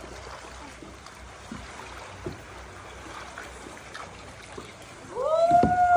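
Water lapping and trickling around a small kayak on the sea, with a few faint knocks. About five seconds in, a loud, long drawn-out call begins, holding one pitch and slowly falling.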